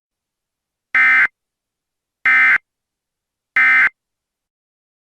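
Emergency Alert System end-of-message data tones: three short, identical, harsh buzzing bursts of SAME digital data about a second apart, marking the end of the alert.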